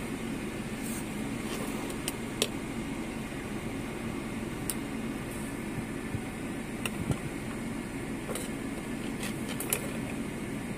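Car air-conditioning blower running with the engine idling: a steady hum heard inside the cabin, with a few light clicks and taps scattered through it.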